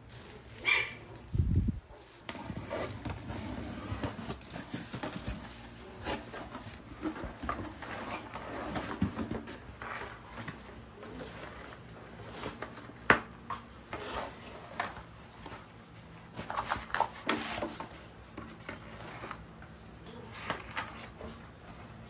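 Unpacking and handling noises: plastic wrapping crinkling and rustling around a pet-carrier backpack, with scattered knocks and clicks. There is a low thump about a second and a half in and a sharp click about thirteen seconds in.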